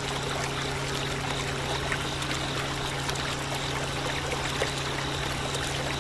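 Small motor-driven water pump running with a steady low hum while water pours and trickles from its outlet.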